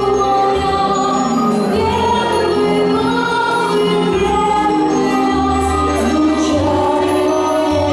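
Music with singing voices: long held notes over a bass line that shifts every second or so, at a steady loud level.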